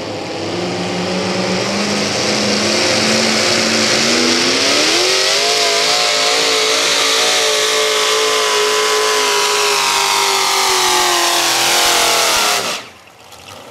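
Multi-V8 modified pulling tractor's engines at full throttle under load on the sled. The revs climb steeply over the first few seconds, then hold high and sag slightly through the pull. The sound cuts off abruptly near the end.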